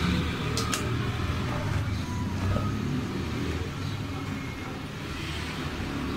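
Steady low background rumble, with two sharp clicks in quick succession less than a second in.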